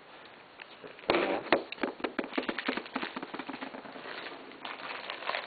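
Packaging crackling and clicking as the new screen's shipping box is handled and opened: a dense run of sharp crackles starting about a second in.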